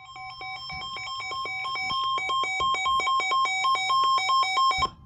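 Weather radio alert: rapid electronic beeping alternating between two pitches, several beeps a second, over a steady warning tone. It grows louder, then the beeping cuts off just before the end and the steady tone carries on faintly. It signals an incoming severe thunderstorm warning.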